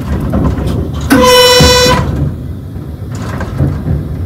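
Metro train's horn sounded once, a single high-pitched blast of under a second about a second in, over the steady low rumble of the train running on the track. It is the driver's warning signal to people on the platform that the train will pass through the station without stopping.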